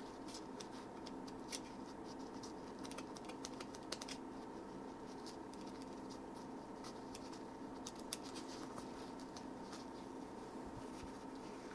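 Faint light scratching and scattered small clicks as old grease is scraped out of the inside of a KS Lev dropper post's remote actuator, with a few sharper clicks about a second and a half, four, and eight seconds in.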